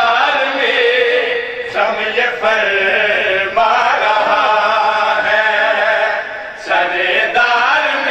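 Men chanting a sung mourning elegy in long, drawn-out vocal phrases, with short breaks between them.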